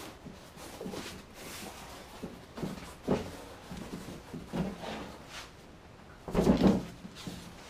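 Hands handling a chair seat and a sheet of upholstery material being fitted over it: rubbing and rustling with scattered knocks, and a louder cluster of knocks and bumps about six and a half seconds in as the seat is lifted off the stool.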